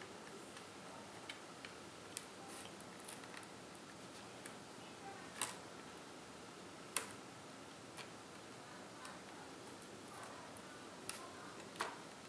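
Irregular faint clicks and snaps as a pry tool works along the seam of an Acer Switch Alpha 12 tablet's case, prying its edge open. The louder clicks come about five and a half and seven seconds in, with two more near the end.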